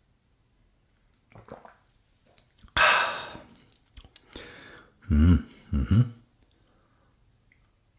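A man drinking blueberry water: a sudden sip about three seconds in, then two short, low hummed throat sounds of tasting a second or so later.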